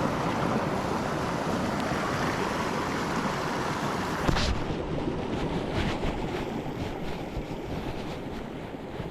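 Steady rush of river water mixed with wind buffeting the microphone. A single knock about four seconds in, after which the hiss thins and the sound gradually fades.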